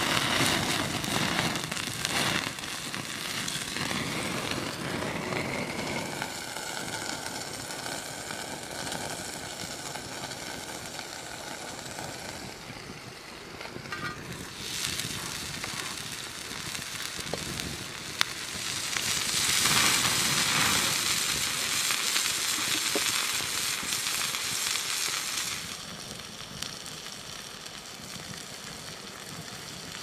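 Beef burger patty sizzling on a hot stone slab over a wood fire, with the fire crackling. The sizzle swells near the start and again past the middle, and a single sharp crack sounds a little before that second swell.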